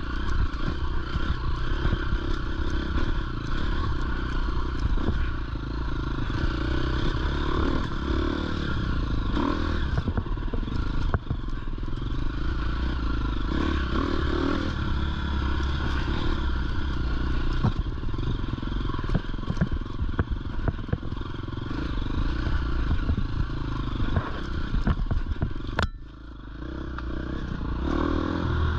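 Dirt bike engine running steadily at low revs on a rocky climb, with clatter and scraping from the bike over loose rock. Near the end the sound drops away sharply for a moment, then builds back up.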